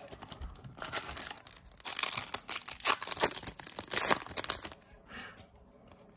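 Yu-Gi-Oh foil booster pack wrapper being torn open and crinkled, a run of rustling tears lasting about four seconds.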